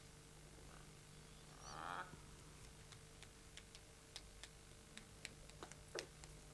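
Near silence: a steady faint hum, with scattered soft clicks and a brief soft rasp about two seconds in.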